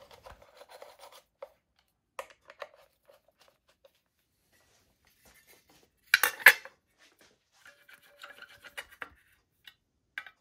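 Light metallic clicks and scrapes of a screwdriver and small engine parts being handled. About six seconds in there is a louder short metal clatter as a polished starter motor cover is set down onto the aluminium crankcase, followed by lighter rattling.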